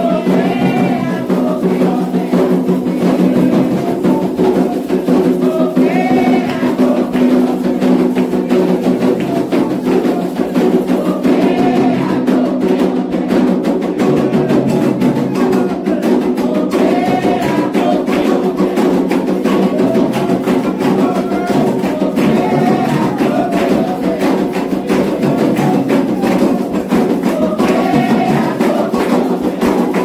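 Candomblé ritual music: a group singing a chant over steady drumming and percussion, with hand clapping.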